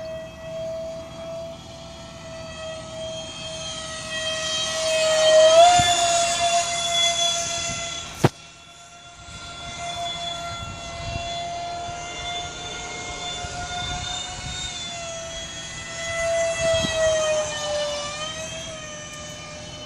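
Electric ducted fans of a Freewing Su-34 RC model jet in flight: a steady high whine that swells louder twice as the model passes, the pitch dipping each time it goes by. A single sharp click about eight seconds in.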